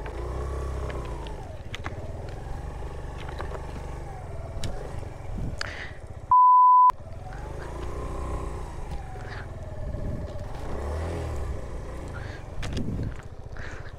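Suzuki Van Van 125's single-cylinder four-stroke engine revving up and down under load as the bike is worked through deep ruts, with a few sharp knocks. A short censor bleep replaces the sound about halfway through.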